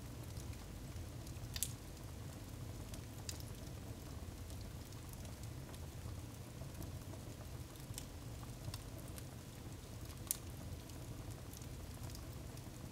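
Wood fire burning in a fireplace: a low steady rumble of the flames with sparse sharp crackles and pops from the burning firewood, the loudest about a second and a half in and again near ten seconds.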